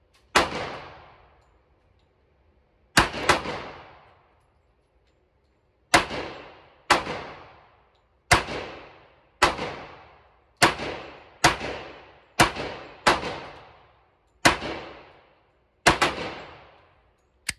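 FN FNX-45 Tactical .45 ACP pistol firing about thirteen single shots at an uneven pace, roughly one to two seconds apart with a couple of quicker pairs. Each shot rings out briefly in the range booth. A shorter, sharp crack comes right at the very end.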